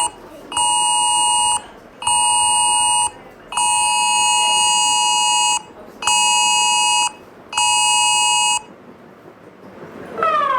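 Emergency Alert System-style two-tone attention signal, pitched near 853 and 960 Hz, sounding as five beeps of about a second each with short gaps; the fourth is held about two seconds. Near the end a different alert starts: falling siren-like sweeps, about one a second.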